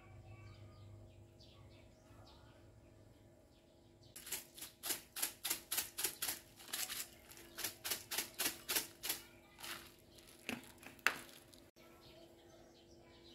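Knife chopping on a cutting board: a run of sharp strokes at about three a second that starts about four seconds in, slows and stops near the end with one louder stroke. Faint bird chirps come before it.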